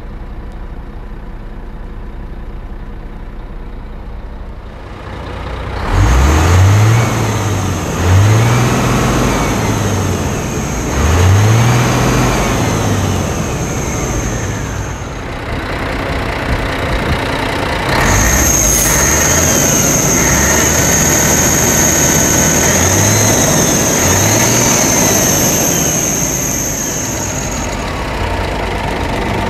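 1997 Scania R124 400 truck's 12-litre straight-six diesel idling, then revved several times while standing, each rev rising and falling back to idle. A steady high whine runs alongside through much of the revving.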